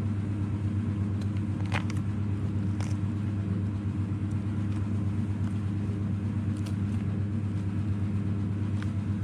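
A steady low mechanical hum, with a few faint short clicks scattered through it.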